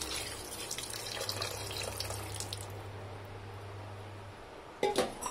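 Water being poured into a steel pressure cooker onto the mutton masala, splashing for about two and a half seconds before trailing off. A sharp knock comes near the end.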